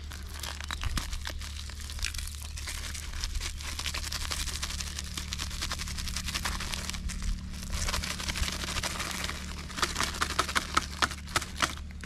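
Plastic packaging crinkling and rustling as dry groundbait ingredients are emptied into a bucket, with sharper crackles near the end.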